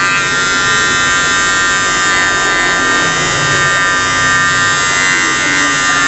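Cordless T-blade hair trimmer running with a steady buzz as its blade edges the hairline at the temple and sideburn.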